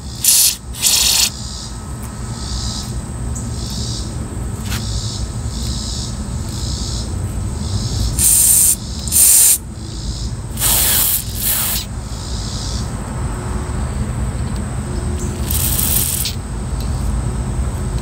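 Aerosol parts cleaner sprayed through a straw into the passages of a small-engine diaphragm carburetor, in several short hissing bursts of a second or less each, flushing out a suspected clog.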